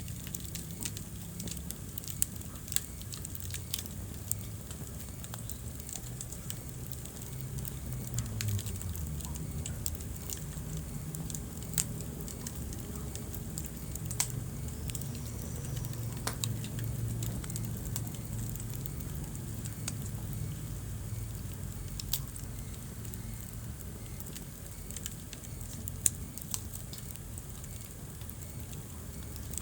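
Wood fire burning in a fireplace, crackling with irregular sharp pops over a low, steady rumble of the flames; one of the loudest pops comes near the end.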